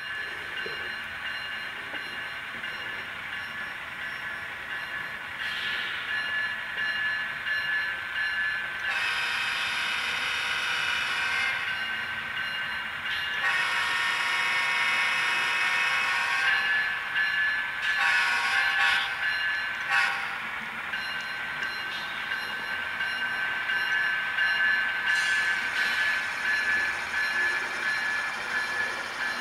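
Sound-equipped N-scale model diesel locomotive running with a steady, thin, high-pitched drone. Horn blasts sound over it: two long ones a bit under halfway in, then shorter toots, and another long one near the end.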